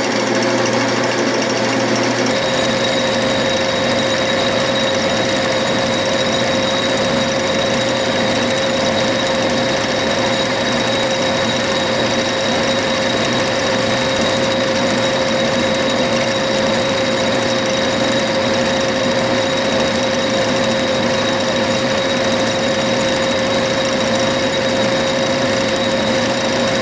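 Metal lathe running steadily with a cutting tool facing off the end of a bench vise screw spinning in the chuck, under a steady machine whine. A higher tone joins about two seconds in.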